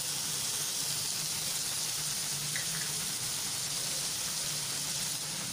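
Diced ridge gourd frying in hot oil in a kadhai, a steady sizzling hiss.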